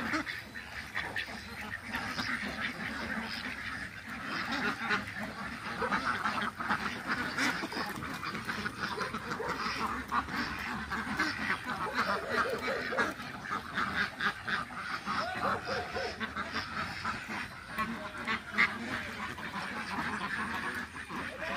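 A large flock of white domestic ducks quacking continuously, many short calls overlapping into a steady chatter.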